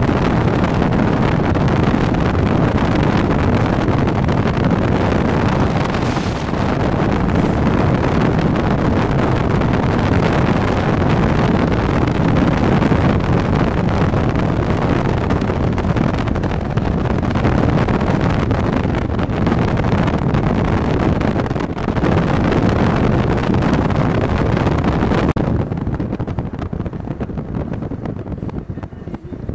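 Steady road and wind noise heard from a moving vehicle on a highway, with wind rushing over the microphone; it grows quieter for the last few seconds.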